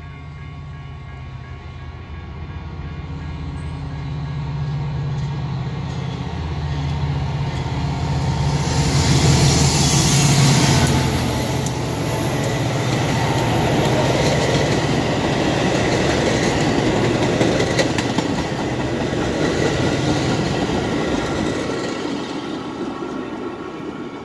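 EMD F40PH diesel locomotive (a 16-cylinder two-stroke engine) approaching and passing close by with its engine droning. It is loudest about nine to eleven seconds in, then comes the rumble and clatter of bilevel passenger cars rolling past, fading near the end.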